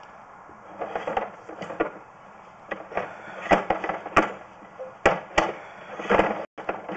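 Sewer inspection camera's push cable being fed into a PVC drain line: irregular knocks, clatter and short scraping bursts as the cable is shoved and the camera head moves along the pipe. A low steady hiss comes first, with the knocking starting about a second in.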